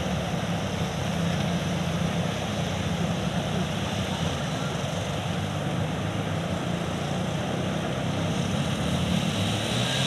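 Floodwater rushing over a submerged causeway, with the steady low drone of motorcycle engines as the bikes ride through the water.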